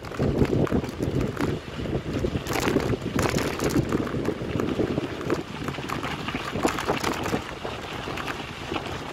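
Wind buffeting the microphone of a camera riding on a mountain bike, with crackling from the tyres rolling over a loose dirt road, busiest about two to four seconds in.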